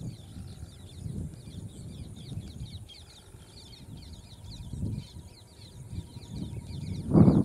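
Outdoor ambience: steady, rapid high chirping runs throughout over low, uneven rumbling noise. A loud, rough noise starts near the end.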